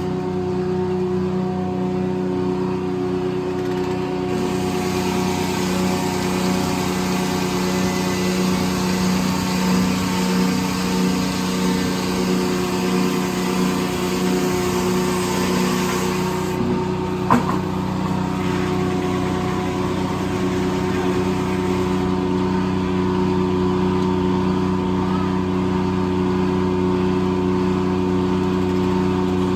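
Corley circle sawmill running steadily, its power unit giving a constant even drone. A harsher hiss rides on top from about four to sixteen seconds in, and a single sharp knock sounds at about seventeen seconds.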